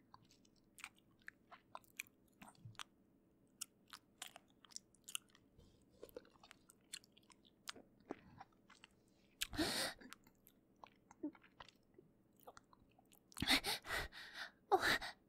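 Faint, wet clicking and smacking sounds close to the microphone, scattered irregularly, with a breath about nine and a half seconds in and a run of heavy breaths near the end.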